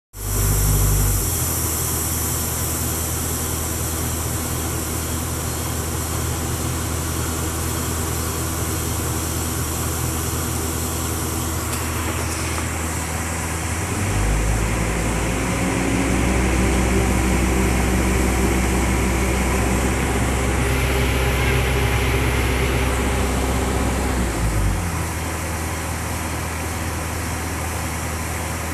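Excavator's diesel engine running steadily, heard from inside the cab. About halfway through its note shifts and it grows slightly louder for about ten seconds as the arm works, then settles back near the end.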